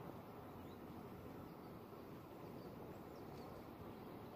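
Faint outdoor ambience at the water's edge: a low, steady rush with a few faint, short, high chirps scattered through it.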